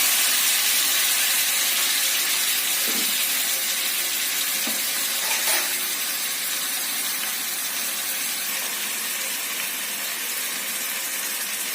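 Raw chicken pieces sizzling in hot oil in a pan: a steady hiss that slowly fades, with a few soft knocks.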